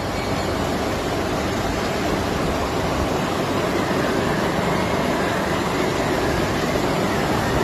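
Floodwater rushing through a street: a steady, even rushing noise.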